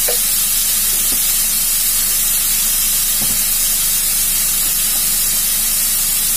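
Grated radish and green peas sizzling steadily in hot oil in a kadai.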